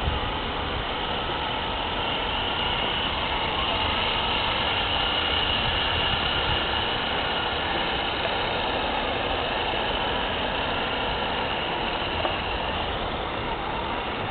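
Radio-controlled model tank running across snow: a steady, engine-like drone with a high whine on top.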